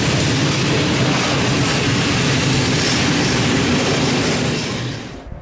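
Freight train of loaded container wagons rolling past, with a steady noise of steel wheels on the rails. It fades as the last wagons go by, and the sound cuts off near the end.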